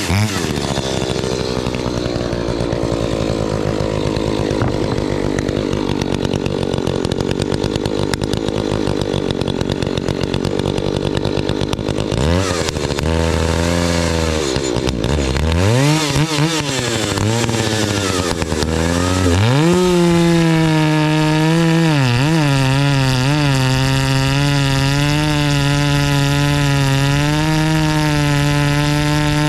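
Two-stroke chainsaw with a modified muffler cutting hardwood, its engine pitch held down under load. About twelve seconds in the revs swing up and down a few times, and from about twenty seconds in it runs at a steady high pitch with no load.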